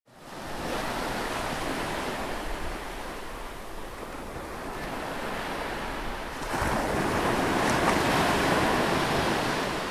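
Ocean surf washing, a steady rush of noise that swells louder about six and a half seconds in.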